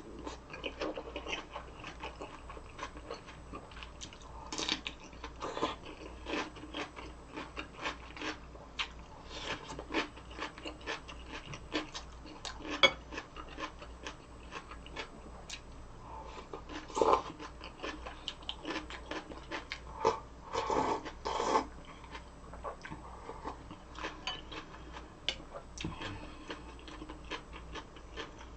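Close-miked eating sounds: chewing and crunching food, with many small crackles and clicks and a few louder bursts near the middle.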